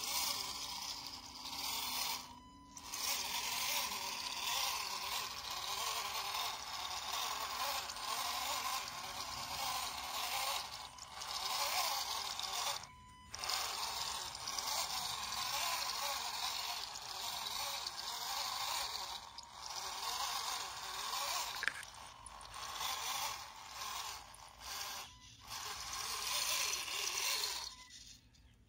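RC scale model truck's small electric motor and gearbox running as it crawls through grass, with grass blades scraping along the body. The sound cuts out briefly several times.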